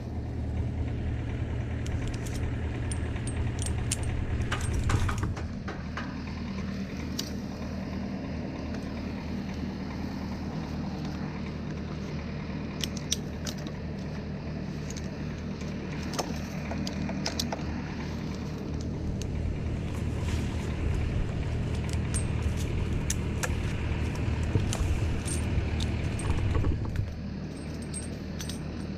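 A large engine running steadily at low speed, its note shifting about five seconds in and again near the end, with scattered light metallic clinks over it.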